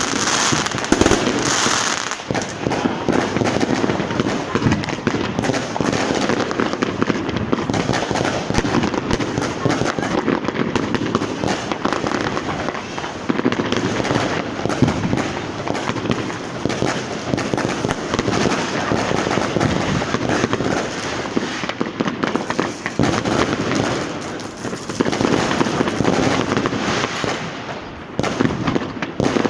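Consumer fireworks and firecrackers going off in the street in a dense, continuous barrage of overlapping bangs and crackles, with no pause.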